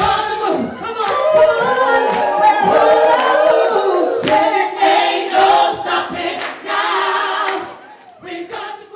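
Gospel choir singing in harmony, stopping about seven and a half seconds in after one brief last phrase.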